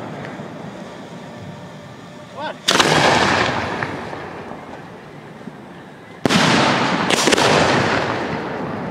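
Aerial display firework shells bursting overhead: one loud bang about two and a half seconds in, then two more close together around six and seven seconds in, each trailing off in a long fading echo.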